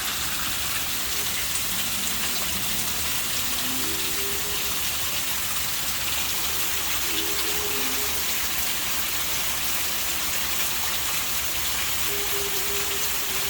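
Unexplained faint low tones from the sky, each held about a second and stepping between pitches, coming and going several times over a steady rain-like hiss.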